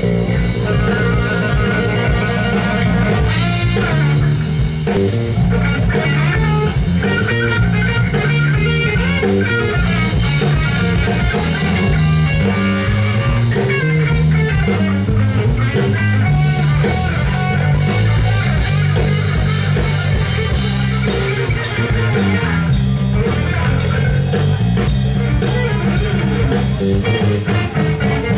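Live instrumental rock from a trio: electric guitar over electric bass and a drum kit, playing continuously.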